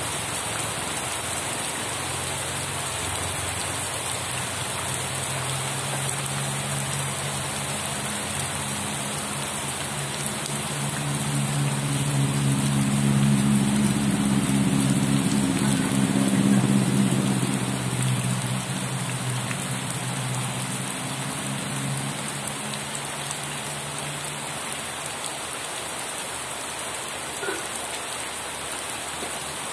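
Steady rain falling on surfaces, an even hiss of drops. In the middle a low droning hum swells up and fades away again over about ten seconds.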